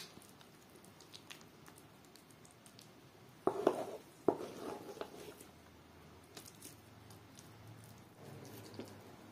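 A wooden spatula working soft mashed abgoosht meat and potatoes onto an enamel plate: quiet squishing and light clicks, with two louder knocks of the utensil against the plate about three and a half and four seconds in.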